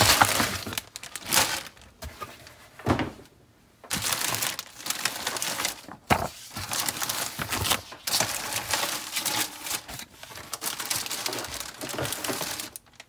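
Clear plastic bags holding styrene sprues crinkling and rustling as they are handled and shifted in the kit box, with a brief pause about three seconds in and a sharp click about six seconds in.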